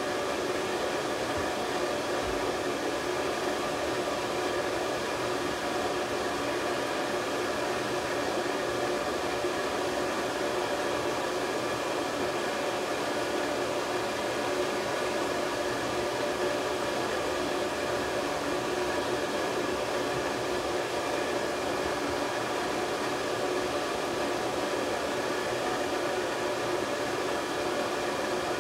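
Handheld hair dryer blowing steadily: an even rush of air with a constant whir from its motor and fan.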